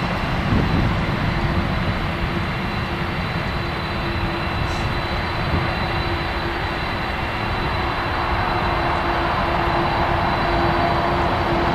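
Boeing 747-400 airliner taxiing, its four jet engines running at low power with a steady whine over a low rumble, growing slightly louder in the last few seconds as it comes closer.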